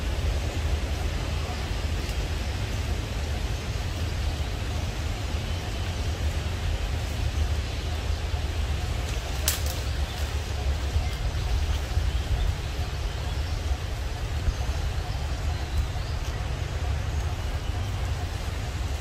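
Steady outdoor background noise: a constant low rumble with an even hiss above it, and one sharp click about halfway through.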